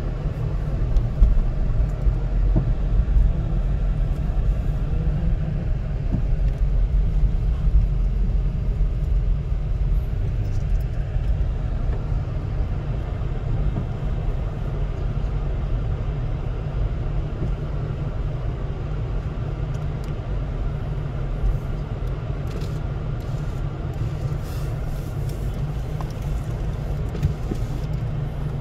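Steady low rumble of a car's engine and tyres, heard from inside the cabin as it drives slowly over snow.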